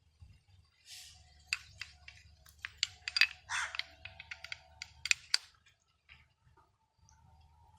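Small metal parts of a motorcycle disc brake caliper and pads clicking and clinking as they are handled, with a quick run of sharp taps in the middle and a couple of short scrapes.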